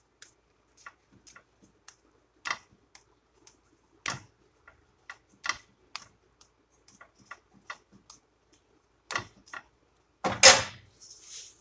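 Sparse, irregular clicks and taps as a quesadilla cooks in a pan under a slotted metal spatula, with one louder scraping clatter about ten seconds in.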